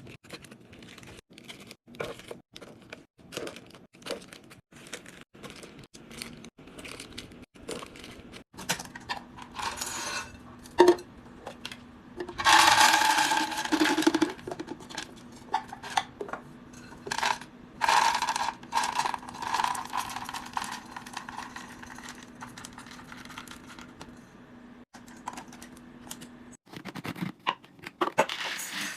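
Groceries and food containers being handled: many small clicks, taps and knocks of plastic and packaging, with a louder stretch of rustling or tearing packaging about halfway through. A faint steady hum runs underneath in the second half.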